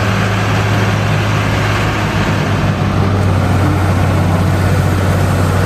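Large six-wheeled fire truck's diesel engine running steadily: a loud low hum with a broad rushing noise over it.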